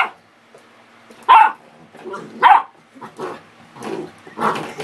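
Puppy barking at a spring door stopper: two sharp, high barks about a second apart, the first a little over a second in, with softer yips between them and near the end.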